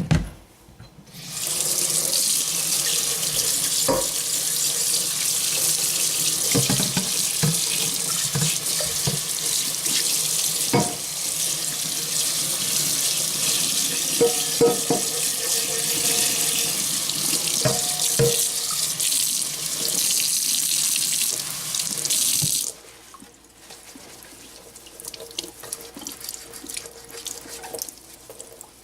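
About five cups of water poured steadily into a cooking pot for some twenty seconds, with a few light knocks, then the pour stops; faint crackling follows.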